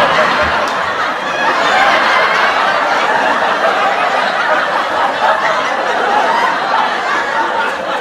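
Sitcom laugh track: a studio audience laughing together, a dense, steady wash of many voices chuckling and laughing, with no pauses.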